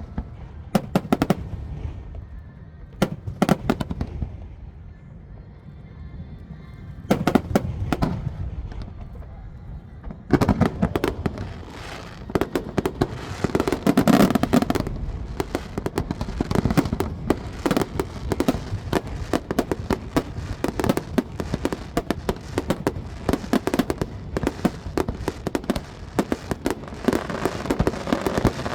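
Aerial fireworks shells bursting over a lake. Single booms come every second or two at first, then from about ten seconds in a dense rapid-fire barrage of bangs and crackles.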